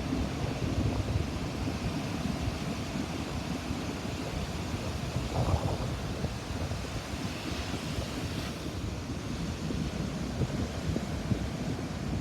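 Ocean surf breaking and washing on a beach, with wind buffeting the microphone. A brighter hiss of a wave washing in rises about seven and a half seconds in and fades about a second later.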